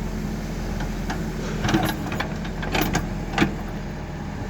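Diesel engine of earthmoving machinery running steadily, with several sharp knocks in the middle of the stretch, the loudest near the end.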